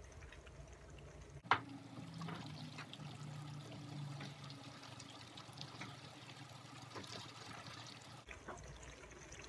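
A spatula stirring thick tomato pasta sauce in a frying pan, heard faintly as soft scrapes and scattered clicks, with one sharp clack about a second and a half in.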